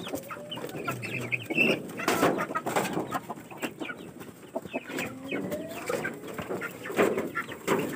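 Chickens clucking in short, broken calls, with scattered sharp clicks and knocks throughout.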